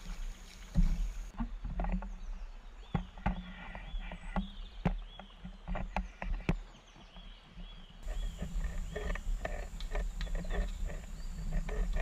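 Water splashing and sloshing around a sit-on-top fishing kayak, from wading in shallow creek water and from paddle strokes. Irregular sharp knocks and splashes sit over a heavy, uneven low rumble.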